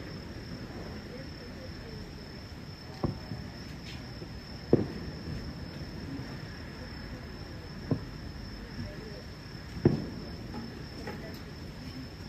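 Distant fireworks shells bursting: four sharp booms a couple of seconds apart, with a few fainter pops between them, over a steady high trill of crickets.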